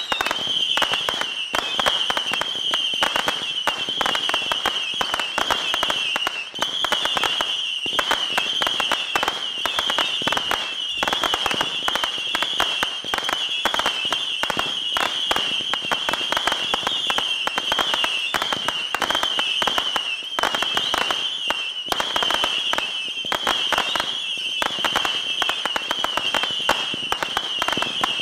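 Saturn missile battery firing whistling rockets one right after another: a continuous, wavering high whistle with rapid crackling pops throughout.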